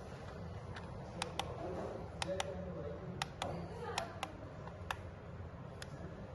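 Buttons on an LED alarm clock clicking as they are pressed to set it, about a dozen sharp clicks at an irregular pace, several in quick pairs, over a low steady hum.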